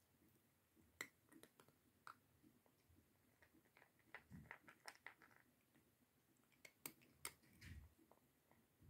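Cat eating from a plastic bowl: faint, irregular chewing clicks and small crunches, with a couple of soft low thuds about halfway and about three-quarters through.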